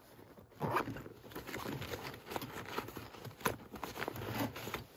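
A fabric tool bag rustling, with small items clicking and knocking, as hands rummage through it. The handling noise comes in uneven scrapes and taps, with a louder rustle about a second in.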